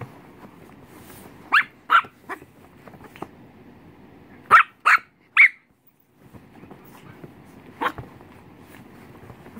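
A 16-week-old puppy barking in short, sharp barks: two about a second and a half in, a quick run of three a few seconds later, and one more near the end.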